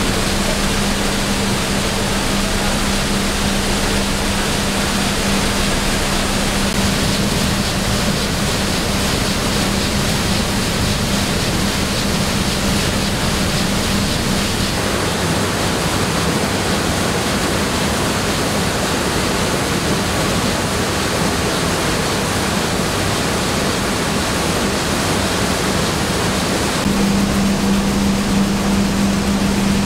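Rice mill machinery running: a loud, dense, steady rush of noise with a constant low hum. The sound changes abruptly about halfway through and again near the end, as the machinery heard changes.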